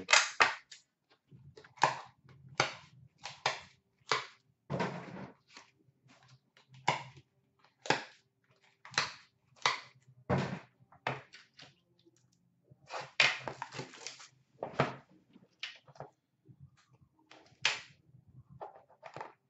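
Trading-card packaging and boxes being handled on a counter: an irregular series of short, sharp clicks, taps and crinkles, with a few brief pauses.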